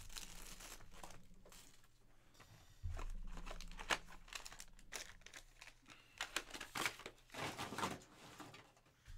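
Silver foil card packs and plastic wrapping crinkling and crackling as they are handled and stacked, with a dull thump about three seconds in.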